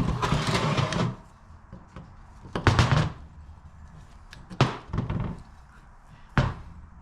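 Knocks and scraping as the metal parts of a car starter motor are handled during disassembly, in four separate bouts.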